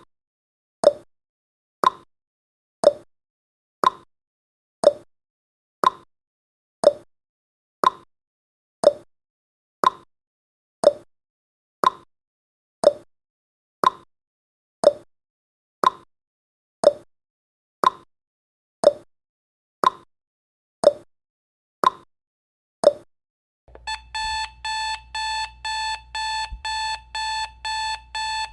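Countdown timer sound effect: a clock tick once a second, then about 24 seconds in the timer hits zero and a rapid alarm-clock beeping starts.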